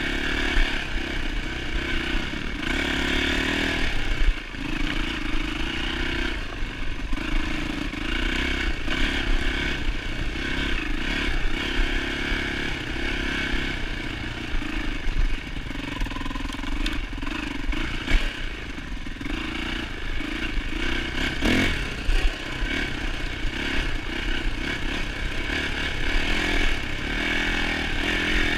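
A 2007 Yamaha YZ450F dirt bike's four-stroke single-cylinder engine is ridden along a trail, revving up and dropping back over and over as the throttle is worked. About two-thirds of the way through there is one sharp knock.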